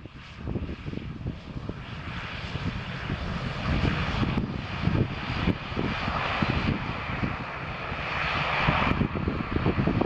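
Bombardier Dash 8 Q400 turboprop on its takeoff roll, its Pratt & Whitney PW150A engines and six-bladed propellers at takeoff power. The steady engine and propeller noise grows louder over the first few seconds and is loudest near the end.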